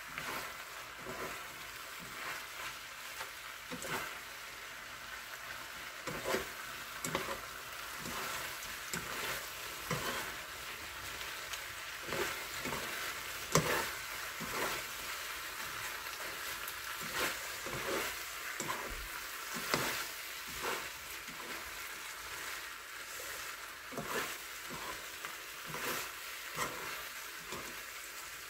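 Blood sausage and vegetables sizzling steadily as they are stir-fried in a frying pan, with irregular clicks and scrapes of a metal spoon and chopsticks against the pan as the food is tossed.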